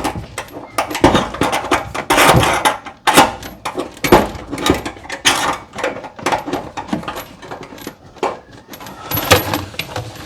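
Metal clinking and rattling as a new kitchen faucet's mounting hardware, a metal ring and a threaded fastening piece, is fitted and screwed up onto the faucet from underneath, in quick irregular clicks.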